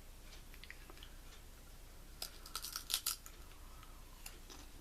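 Crisp crackling from Lay's Smoked Gouda & Chives potato chips: a few faint clicks, then a cluster of sharp crunches about a second long, a little past the middle.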